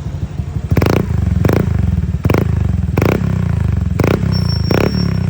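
Honda Click scooter with an Apido aftermarket exhaust idling and blipped six times with quick, sharp throttle revs, about one every three-quarters of a second.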